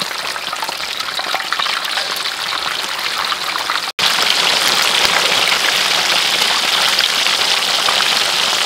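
Fish steaks frying in hot oil in a wok: a dense, even sizzle and crackle. It cuts out for an instant about four seconds in, then comes back louder.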